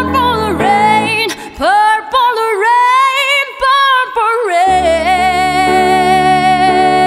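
A woman singing a wordless melody with quick runs and slides over piano. About two-thirds of the way through, a low piano chord is struck and she holds one long, steady note over it.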